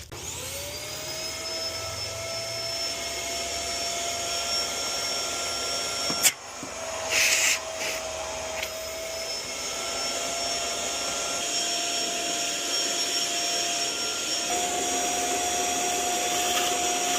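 Household vacuum cleaner switched on, its motor whine rising as it spins up and then running steadily, put to the car's oil system to suck up the engine oil during an oil change. A sharp knock comes about six seconds in, followed by a brief hiss of air, and the motor's pitch steps up slightly near the end.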